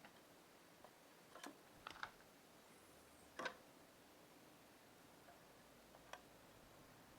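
Near silence with a few faint, scattered clicks and taps of small tools during hand soldering on a circuit board.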